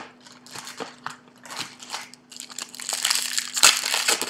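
A trading-card pack wrapper crinkling as it is handled and opened. There is a sharp tap at the start, and the crinkling grows loudest in the second half.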